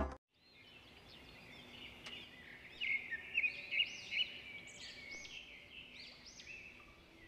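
Small birds chirping in quick, repeated, arching high notes over a faint steady background hiss. The chirping is loudest from about three to five seconds in.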